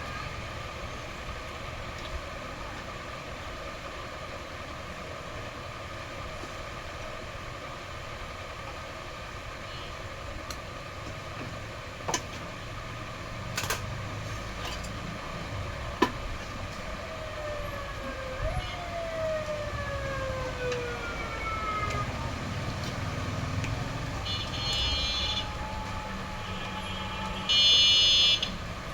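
Steady traffic rumble and hum with a few sharp clicks. A tone glides downward several times, like a siren winding down. Near the end come two short, high horn blasts, the second one loud.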